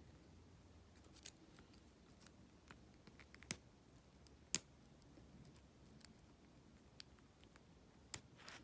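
Faint, irregular metallic clicks of a lock pick and tension wrench working the pin tumblers of a Yale 110/40 brass padlock, with about half a dozen sharper clicks spaced a second or so apart.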